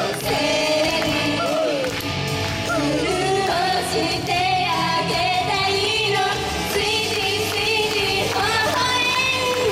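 Live J-pop idol song with female group vocals singing over a loud backing track with a steady beat, heard through a hall's sound system.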